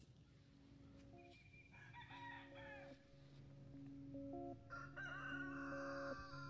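A rooster crowing faintly, twice: once about two seconds in and again near the end. Under it run steady held tones that shift pitch now and then.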